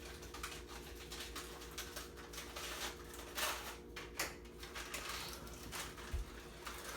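Crinkling plastic sleeve of graham crackers as crackers are pulled out one by one: irregular small crackles and rustles, with a couple of louder crinkles about three and four seconds in, over a faint steady hum.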